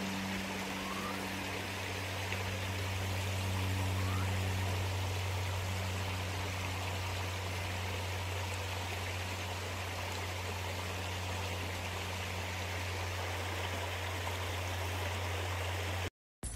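Creek water running steadily over rocks, with a constant low hum underneath.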